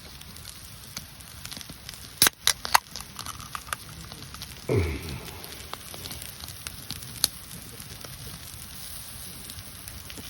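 Food sizzling on an iron griddle over a campfire, with crackling throughout. A few sharp clicks come about two seconds in, and a short sound falling in pitch comes about halfway through.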